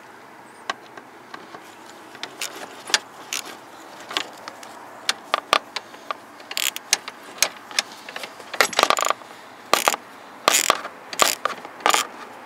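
Irregular sharp clicks and clatter of a truck's headlight dimmer switch and its wiring plug being worked by hand, sparse at first and busier from about halfway through.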